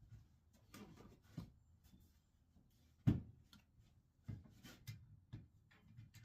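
Irregular knocks and clicks of wooden workpieces and tools being handled on a workbench, with one louder thump about three seconds in.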